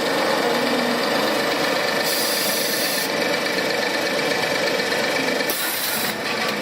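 Refrigerator door gasket production line machinery running steadily, with two short hissing bursts, one about two seconds in and one near the end.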